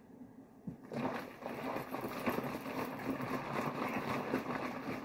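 Honey and water sloshing inside a plastic jug shaken hard, starting about a second in: the honey being mixed into the water to make mead must.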